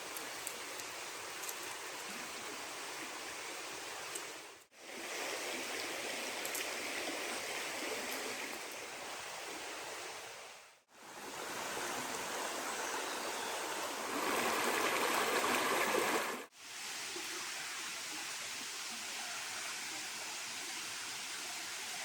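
Steady rushing of running water, like a forest stream, heard in four short clips that each fade out abruptly; the third is the loudest.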